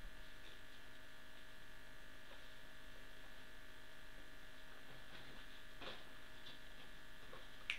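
Steady electrical hum with several fixed tones, a mains-type buzz under the room sound, with a few faint soft rustles or knocks in the second half.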